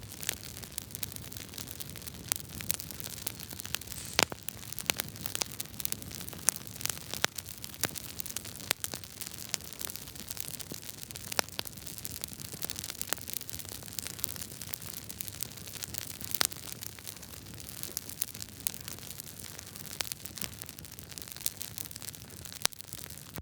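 Wood fire crackling: a steady hiss with frequent irregular sharp pops and snaps, a few of them much louder than the rest.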